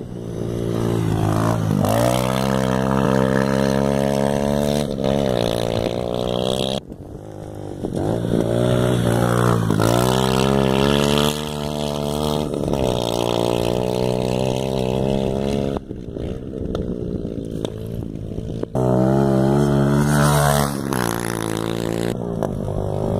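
Motocross bike engine revving as it is ridden through a dirt corner. The pitch rises on each acceleration and falls away when the throttle closes, several times over.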